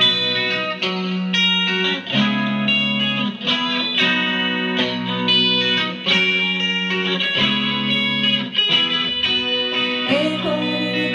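Electric guitar, a Stratocaster-style solid-body played through an amp, playing the chord intro of a live band's song, the chords changing every second and a half or so.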